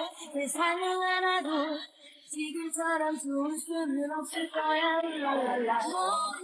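Background music: a song with a high, bright female singing voice carrying a melody in held notes, with a short break about two seconds in.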